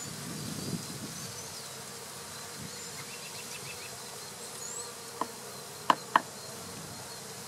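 Honeybees buzzing steadily around an open hive. About five seconds in comes a small sharp knock, then two louder knocks a quarter second apart.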